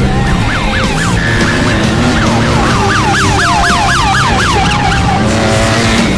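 Siren-like wail of quick rising-and-falling sweeps, bunched together at several a second in the middle, over loud background music.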